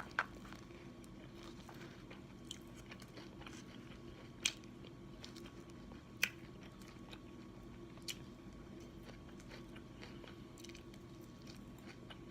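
Close-miked chewing of a sub sandwich, with a few sharp mouth smacks spaced a couple of seconds apart over a faint steady hum.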